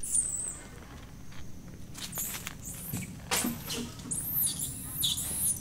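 Short, high-pitched squeaks and chirps in a few quick clusters, at the very start and again near the end, with a brief rustling scuffle about halfway through.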